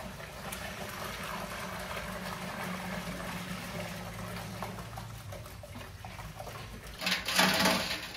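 Milky liquid pouring from a stainless steel pot through a cloth strainer into another metal pot, a steady splashing stream that grows louder for a moment near the end.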